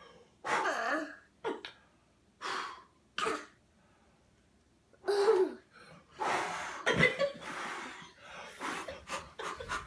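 A toddler's breathy, cough-like bursts of laughter, coming in short separate spurts with a pause in the middle, then longer and closer together in the second half.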